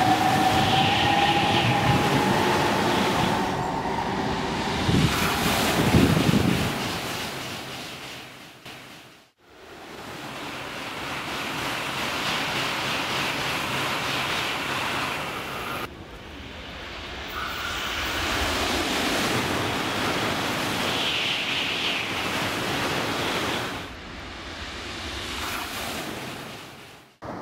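Hitachi Class 395 'Javelin' electric multiple unit trains moving past a station platform, in several edited stretches. At first a slowly rising electric whine sits over the rushing noise of the passing train before it fades away. Then come stretches of steady rushing train noise, each ending in an abrupt cut.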